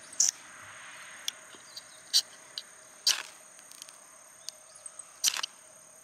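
Ferrocerium fire-starter rod scraped hard with the edge of a steel multitool striker: four sharp scrapes a second or two apart, with a few lighter ones between, throwing sparks onto tissue tinder.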